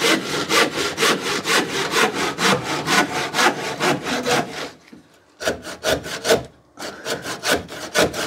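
Hand saw cutting overhead timber framing in quick, even back-and-forth strokes. It stops about five seconds in, saws briefly, pauses again, then resumes near the end.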